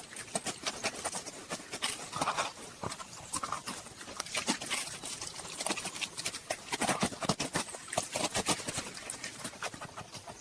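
A honey badger's claws scratching and digging at a hard termite mound: a fast, irregular run of scrapes and knocks on dry earth.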